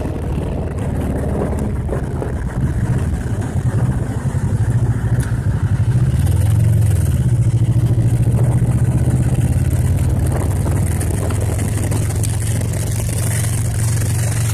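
A 1986 Kawasaki 454 LTD motorcycle's parallel-twin engine running under way. It grows louder over the first few seconds, rises briefly in pitch about six seconds in, then holds a steady note.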